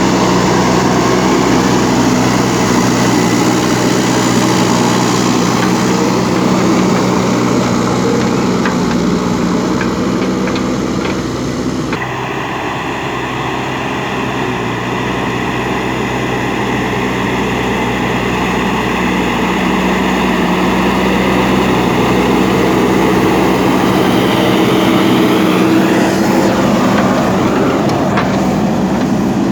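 JCB backhoe loader's diesel engine running steadily, with an abrupt change in its sound about twelve seconds in.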